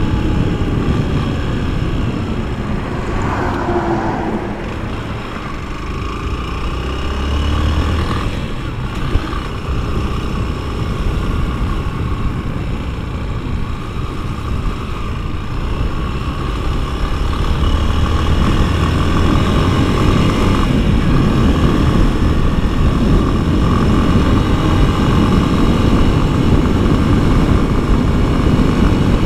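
Honda XRE 190's single-cylinder four-stroke engine under way, its note falling as the bike slows for a turn and then rising again as it picks up speed, with wind rumble on the microphone.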